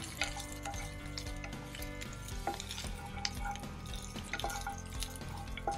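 Chopped onion and capsicum sautéing in a frying pan with a little oil, sizzling lightly while being stirred, with scattered clicks of the stirring utensil against the pan.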